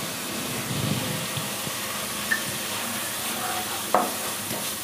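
Onion-tomato masala frying in oil in a kadai, sizzling steadily while a spatula stirs the freshly added turmeric and red chilli powder into it. About four seconds in, the spatula knocks sharply against the pan.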